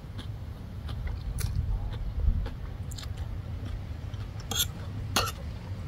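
A person chewing a mouthful of crunchy shredded green papaya salad, close up, with several short sharp crunches among the steady chewing.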